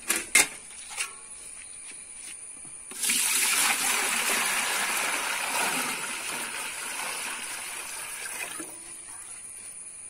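Water poured from a metal vessel into the bottom of a large aluminium idli steamer pot, splashing onto the shallow water already in it; the pour starts about three seconds in, is loudest at first and tapers off, stopping near the end. A couple of light knocks come before it.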